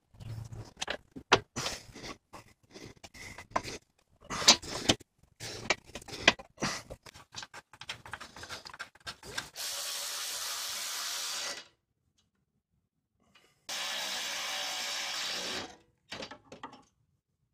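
Metal clinks and handling knocks from parts and fittings, then a Milwaukee M12 Fuel 3/8" cordless electric ratchet running in two steady bursts of about two seconds each, spinning a bolt at the AC condenser mount.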